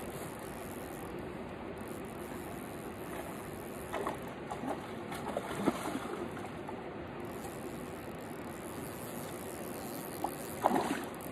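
Steady rush of a flowing river, with a few short clicks and knocks about four to six seconds in and again near the end.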